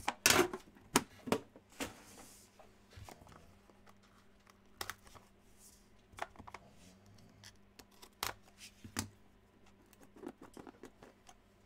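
Hands opening a sealed cardboard trading-card box: a run of scattered sharp clicks and taps, with a couple of brief rustles as the packaging is worked and the lid is pulled off.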